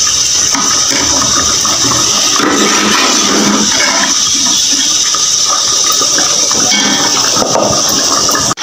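Steady loud hiss from the gas stove's lit burners under the cooking pots, with a few faint knocks from a ladle stirring the simmering potato curry.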